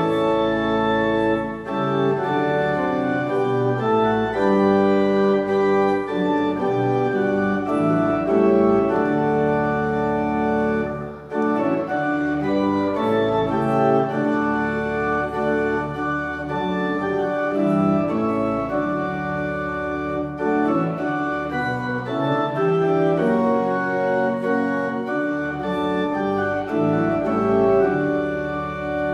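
Church organ playing a piece in full held chords that change every second or so.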